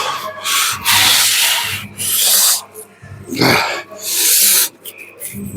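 A person breathing hard through a set: loud, hissing breaths, about one a second.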